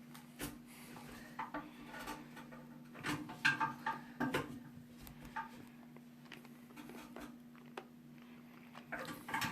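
Irregular small clicks and clatters of a plastic flush valve nut being turned and tightened by hand onto the threaded shank under a toilet tank, busiest about three to four seconds in and again near the end.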